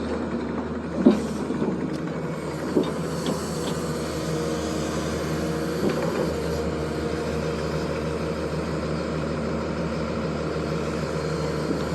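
Zoomlion excavator's diesel engine running steadily, with a few short knocks, the loudest about a second in.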